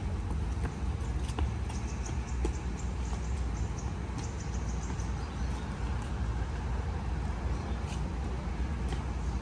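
Steady low outdoor rumble, with a runner's shoes striking a concrete path a few times in the first seconds as the steps move away.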